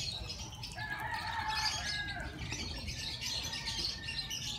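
Birds chirping and twittering in quick, high clusters, with a held whistle-like note about a second in.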